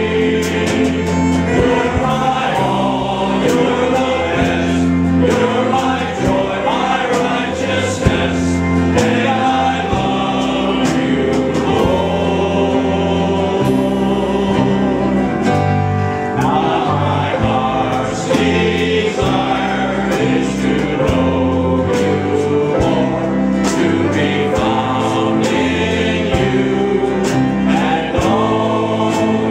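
Men's choir singing a gospel hymn in harmony, with a fiddle playing along.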